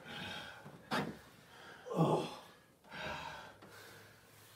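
A man groaning and breathing hard, with a sharp thud about a second in.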